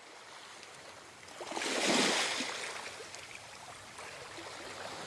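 Sea waves washing onto a beach: a wave builds and breaks about two seconds in, then drains back into a steady surf hiss.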